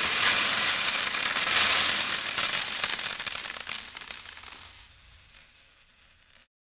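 Six thousand pennies pouring down in an avalanche: a dense, continuous jingling of coins that surges again about a second and a half in. It then thins out to scattered clinks and dies away near the end.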